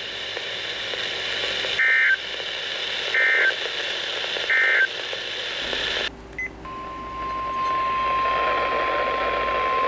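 Three short Emergency Alert System end-of-message data bursts, warbling two-tone chirps about a second and a half apart. After a break, a steady single-pitch NOAA Weather Radio alert tone begins, signalling the start of a new warning broadcast.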